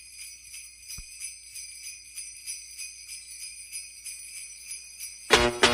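Jingle bells shaking in a steady rhythm, about four shakes a second, as the opening of intro music. Near the end, fuller music comes in loudly.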